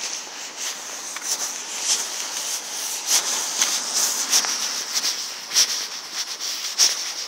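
Footsteps on a wet, slushy sidewalk at a steady walking pace, a step about every half second or so, over a constant hiss.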